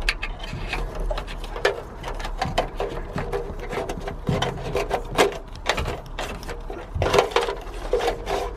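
Fibre-optic cable bundle in its plastic packing being pushed through a hole in the car's bare sheet-metal body panel, rubbing and scraping against the metal with many quick, irregular clicks. A squeaky rubbing comes in near the end.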